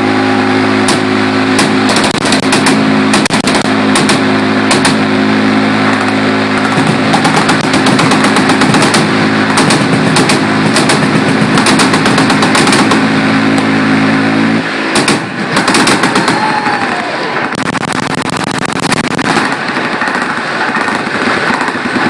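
Massed machine-gun fire from many guns at once, a dense crackle of shots with single reports standing out. Under it runs a steady buzz from a very fast-firing gun in one continuous burst, which cuts off abruptly about two-thirds of the way through.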